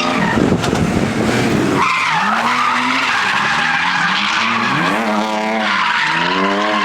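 A drifting car, its engine revving and falling again several times over skidding tyres, with a noisy rush in the first couple of seconds.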